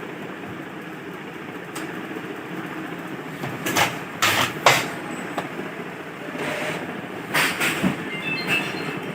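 Epson L130 inkjet printer at power-on: the print-head carriage runs hard left and right, a steady mechanical rattle broken by loud knocks about halfway through and again near the end. The encoder strip has slipped out of the carriage sensor's slot, so the sensor cannot read where the carriage is, and the carriage bangs against its ends.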